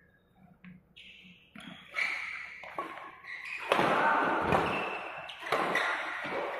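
Badminton rally: sharp racket-on-shuttlecock hits and thudding footwork on the court, getting busier and louder from about two seconds in.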